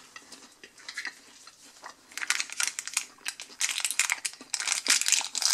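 Foil lid of a small plastic dip cup crinkling and crackling as fingers peel it back. The peeling starts about two seconds in, after a moment of quiet handling clicks.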